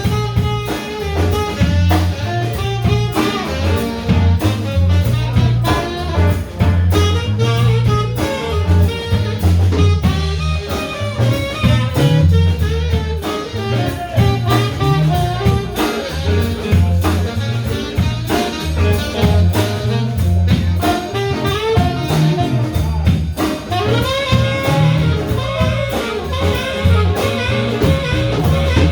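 Live blues band playing an instrumental break: a lead instrument solos over a pulsing bass line and steady drums.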